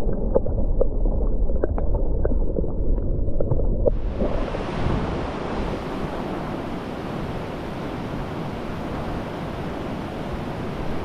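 Fast river water heard first from underwater: a muffled low rush with scattered small clicks and ticks. About four seconds in, the microphone leaves the water and the sound opens abruptly into the full, steady hiss of whitewater rapids rushing past boulders.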